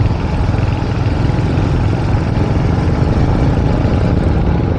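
Motorcycle engine running steadily while riding, with a heavy low rumble mixed with rushing wind and road noise.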